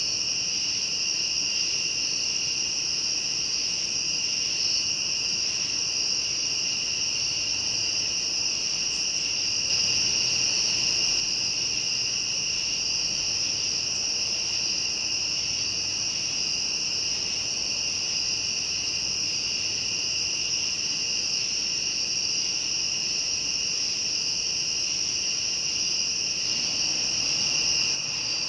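Chorus of crickets and other night-singing insects calling continuously, steady at two distinct pitches, one high and one somewhat lower.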